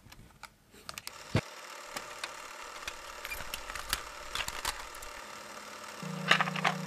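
Steady hiss with scattered crackles and clicks, then about six seconds in the clacking of a clear plastic cassette tape being handled. A steady low hum starts at the same moment.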